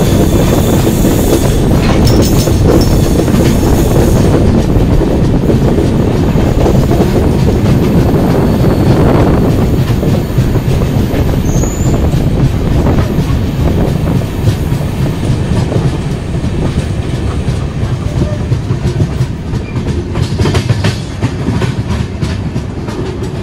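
Moving passenger train heard from an open coach door: a steady, loud rumble of the wheels running on the rails. It eases slightly midway, and a run of sharp clicks comes in near the end.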